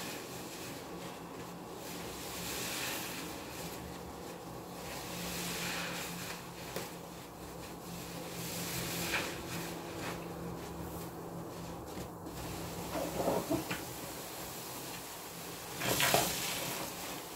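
New yellow car sponges full of soapy lather being squeezed and wrung by hand over a sink of water, giving several swells of wet, hissing noise; the loudest swell comes near the end.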